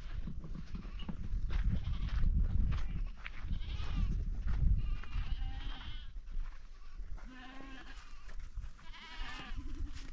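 Several wavering bleats from small livestock, one after another, over a low rumble in the first half.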